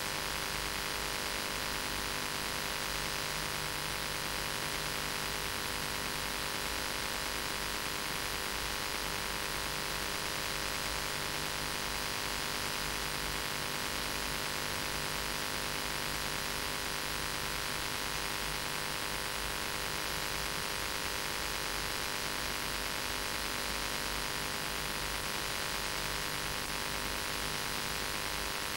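Steady hiss with a faint electrical hum and no speech: the recording's own background noise, unchanging throughout.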